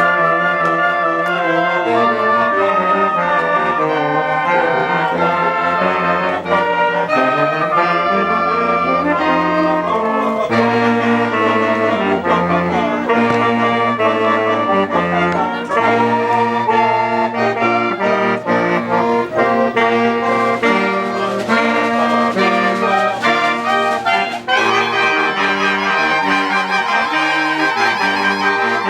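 Instrumental music with held notes from brass or reed instruments over a moving bass line.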